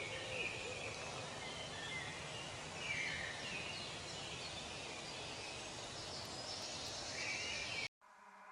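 Outdoor ambience: a steady hiss with birds chirping now and then. It cuts off suddenly near the end, and music begins to fade in.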